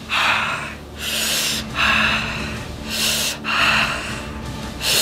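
A man breathing hard in a series of about six loud, hissing breaths drawn and pushed through clenched teeth. This is a reaction to the mouth burning from an extremely spicy gummy candy.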